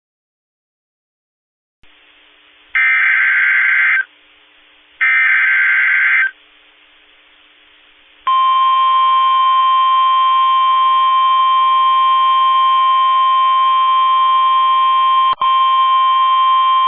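Emergency Alert System (SAME) header on NOAA Weather Radio: after about two seconds of silence, two harsh data bursts about a second long each, then a steady single-pitched warning alarm tone lasting about nine seconds, with a brief click near the end. It signals the start of a new warning broadcast, here a flash flood warning.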